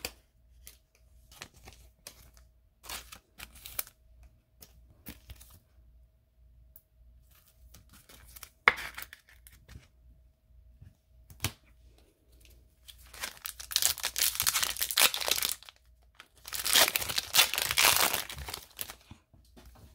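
Wrapper of a hockey trading-card pack being torn open in two long, crinkly rips in the second half, after a run of faint clicks and rustles of cards being handled.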